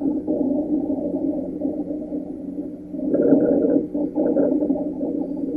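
Rhonchi in a lung auscultation recording: a continuous, low-pitched, musical breath sound that rises and falls in strength, loudest a little over halfway through. Rhonchi are the sign of air passing through narrowed airways, with the same causes as wheeze, mainly COPD and asthma.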